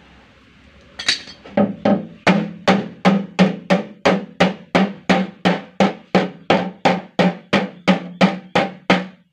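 Hammer striking the back of a blade held against an empty sheet-metal tin drum, cutting an opening in the tin. A steady run of metallic strikes starts about a second in, about three a second, each ringing briefly in the hollow drum.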